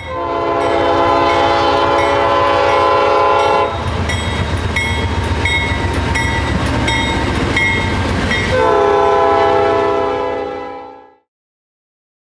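A diesel freight locomotive's air horn sounding a long chord, then the heavy rumble of the passing train with regular wheel clicks over the rail joints, then a second long horn blast. Everything stops about a second before the end.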